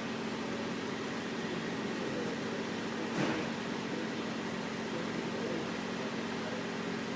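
Steady background hum of a fan or air-conditioning unit, with a few low steady tones, and one brief knock about three seconds in as parts are handled on the bench.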